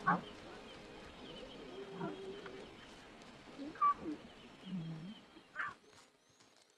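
Lioness and her cubs calling softly: a handful of short, separate calls, with one low call about five seconds in.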